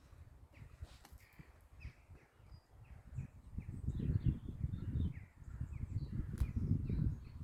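Birds calling with short, scattered chirps, over an irregular low rumble that grows louder in the second half.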